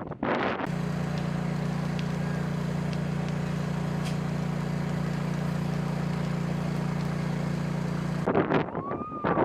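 A steady engine drone with a strong low hum, starting suddenly about a second in and cutting off suddenly near the end. Strong wind buffets the microphone before and after it.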